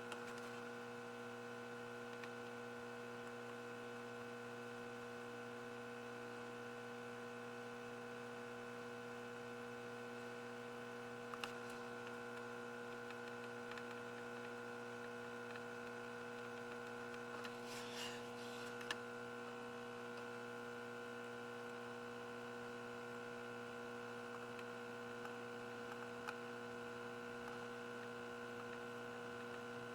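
Steady low electrical mains hum, with a few faint clicks.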